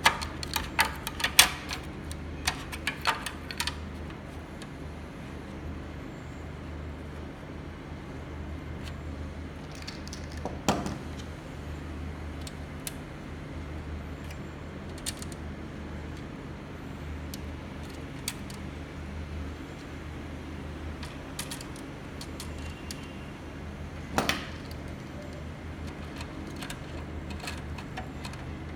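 Small metal clicks and taps from a screwdriver and screws as a replacement control board is fitted into a metal HDMI matrix switcher chassis. A quick run of clicks comes in the first few seconds and a couple of single knocks later, over a steady low hum.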